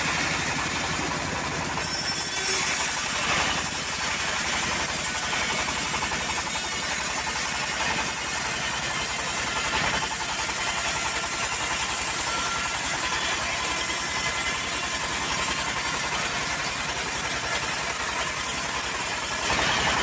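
Homemade bandsaw mill running steadily while its blade saws lengthwise through a teak log: a continuous machine drone with the noise of the cut over it.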